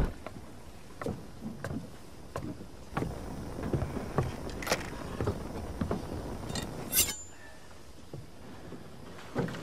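A loud thump, then a run of knocks and clatters as gear is handled and moved about, ending in a sharp metallic clank about seven seconds in.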